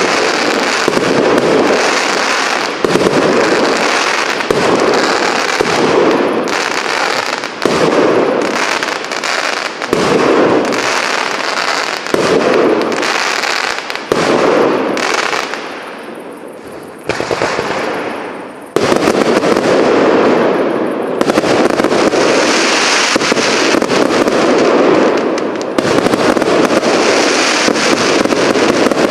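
Firework cake display firing a dense, continuous barrage of shots and bursts. The firing thins out and drops away briefly a little past halfway, then the barrage resumes at full strength.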